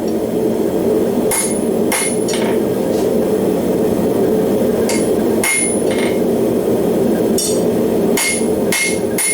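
Hammer blows on hot steel over an anvil, coming in groups of two or three, each with a bright metallic ring, as a horseshoe is forged. Under them the forge runs with a steady roar.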